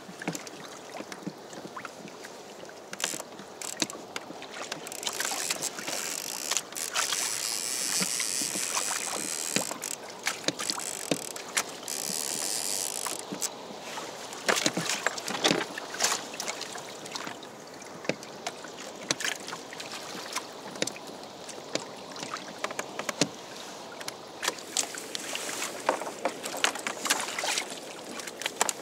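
Choppy sea slapping and splashing against a Hobie Adventure Island kayak's hull, with many sharp knocks and clicks and a louder hissing rush from about five to thirteen seconds in.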